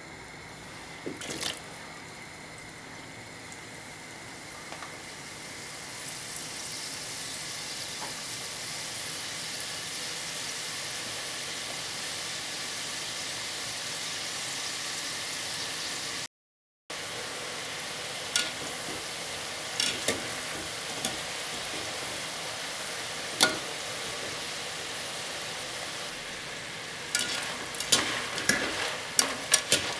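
Strips of egg dough deep-frying in hot oil in a pot, a steady sizzle that grows stronger over the first several seconds. Near the end a wire skimmer stirs through them, with quick clinks and scrapes against the pot.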